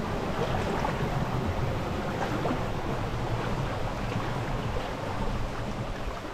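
Steady rush of a shallow creek running over rocks, with a low rumble of wind on the microphone.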